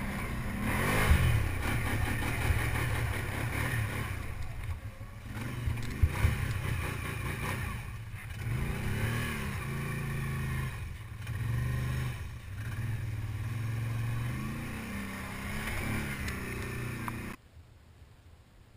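Can-Am ATV engine revving up and down as the throttle is repeatedly opened and eased, with a few sharp knocks along the way. The engine sound cuts off abruptly about 17 seconds in.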